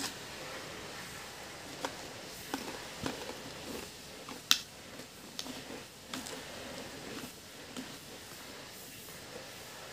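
Close-up crunching and chewing of Pringles potato crisps: a string of short, sharp crunches between about two and six seconds in, the sharpest about halfway through, then softer chewing.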